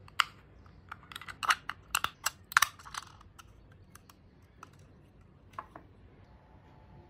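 Sharp plastic clicks and rattles of a small plastic battery box being handled, its battery cover worked with a thumb: a quick run of clicks over the first three seconds, then two more about five and a half seconds in.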